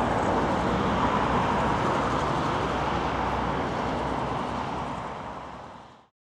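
Steady jet engine noise from the Boeing 777-300ER's GE90 engines after landing, fading away to silence near the end.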